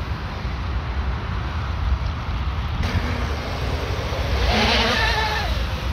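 Twin brushless motors of an RC mono-hull speedboat running at speed, a high motor whine with the hiss of spray from the surface-drive props. It grows louder from about four and a half seconds in as the boat passes close, over a steady low wind rumble on the microphone.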